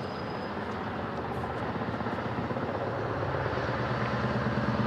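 Scania truck's diesel engine running at a steady pitch, growing steadily louder as the truck comes closer.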